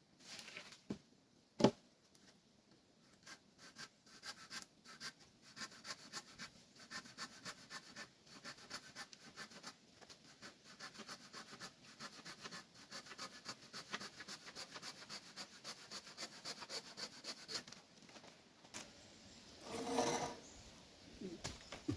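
Quick rasping strokes on wood, about four a second, like a saw or blade working a branch, with one sharp knock near the start. The strokes stop about three-quarters of the way through, and a short louder rustle follows near the end.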